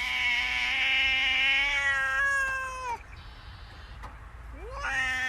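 A domestic cat meowing: one long drawn-out meow of about three seconds that drops in pitch as it ends, then a second meow rising in pitch near the end.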